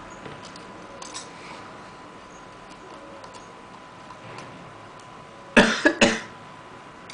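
Faint small ticks of a screwdriver and tiny screws being handled on a laptop hard drive, then two loud coughs close together near the end.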